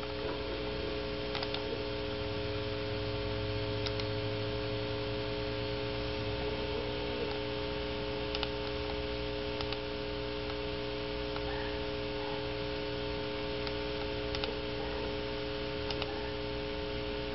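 Steady electrical hum made of several held tones, with a lower layer of hum that drops away about six seconds in. A few faint clicks are scattered through it.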